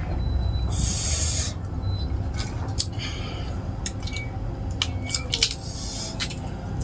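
A person eating: chewing with wet mouth clicks and smacks, with a short hiss about a second in, over a steady low hum.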